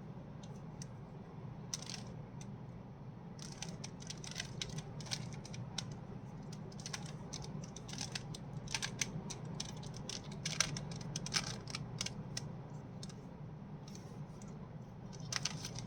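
Rubik's cube being twisted by hand: irregular runs of small plastic clicks and clacks as its layers turn, over a steady low hum. This is the cube solved stage by stage, here building the first-layer cross.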